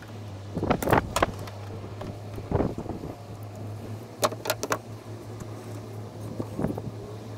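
Sharp clicks and snips of a hand wire stripper and crimper working a headlight wire into a blue butt connector, coming in small groups of two or three, over a steady low hum.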